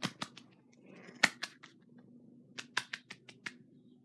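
Irregular sharp clicks and taps right at the phone's microphone, the loudest about a second in and a quick cluster of them near the end, over a faint low steady hum.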